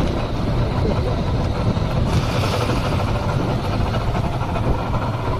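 Small fishing boat's outboard motor running steadily, with wind and water noise over it.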